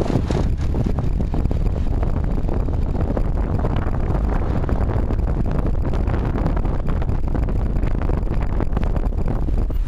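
Santa Ana wind gusting through palm trees, the fronds rustling and thrashing, over a heavy low rumble of wind buffeting the microphone.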